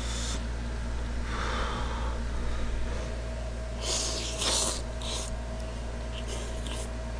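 A person slurping noodles from a bowl of jjamppong noodle soup: a few short, wet, hissy slurps, the loudest about four and a half seconds in, with a softer breath earlier, over a steady low hum.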